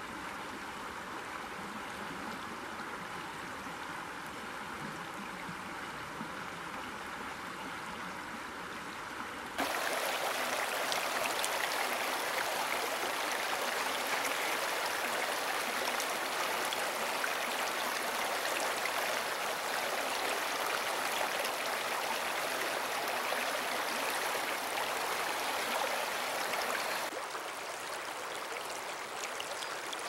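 Creek water running and gurgling over rocks in a steady rush. About a third of the way in it jumps abruptly louder and brighter, then drops back to a softer flow near the end, as different stretches of the creek cut in.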